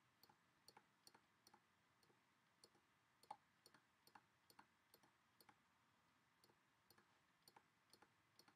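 Faint, irregular clicks of a computer mouse button, about two to three a second and often in quick pairs, as polygons are picked one after another in 3D software.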